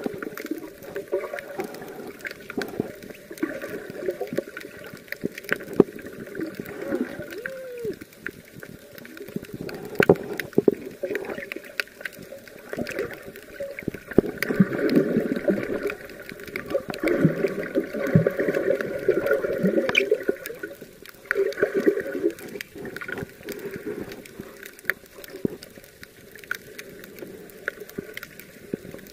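Underwater sound picked up by a submerged camera: muffled water movement and gurgling that swells and fades several times, with frequent small clicks and ticks.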